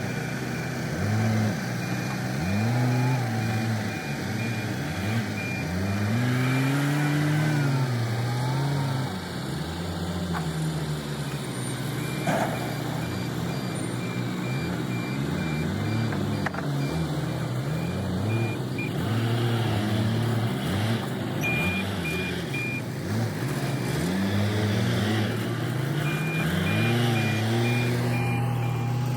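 Diesel farm machinery running at the potato hopper, its engine repeatedly revving up and dropping back, with a backup alarm beeping in stretches.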